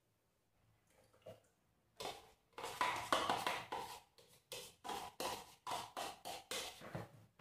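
A spoon scraping and knocking against a plastic bowl, in a run of sharp strokes about two to three a second that starts about two seconds in, as a thick cream mixture is scraped out into a blender jar.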